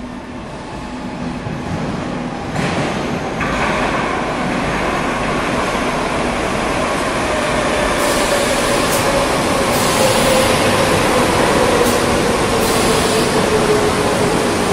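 Metro train coming out of the tunnel and pulling into an underground station. The running noise builds over the first few seconds, then holds loud with a steadily falling whine, and a few sharp clicks come in the second half.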